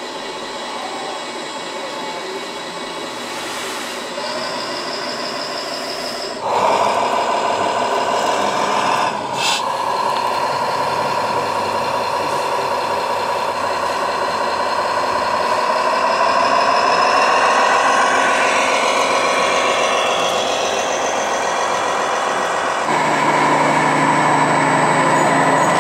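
Scale RC trucks' sound modules playing diesel engine noise through small onboard speakers, the engine note wavering up and down as the trucks work. The sound gets louder about six seconds in. About 23 seconds in, a deeper engine sound from another truck takes over.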